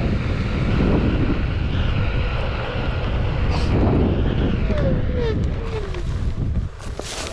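Wind buffeting the microphone over the rumble of an electric Onewheel board rolling on pavement. About five seconds in, a falling whine comes from its hub motor as it slows. The rumble drops off sharply near the end as the board leaves the path for the grass.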